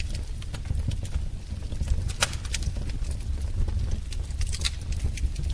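Wood fire crackling in a fireplace: irregular sharp pops and snaps over a steady low rumble of the flames, with one louder pop about two seconds in.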